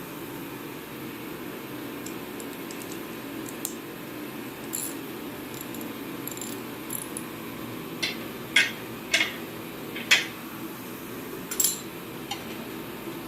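Scattered light metallic clinks and taps of tools and parts being handled during repair work. The sharpest clinks come in a quick cluster about eight to ten seconds in, over a steady low hum.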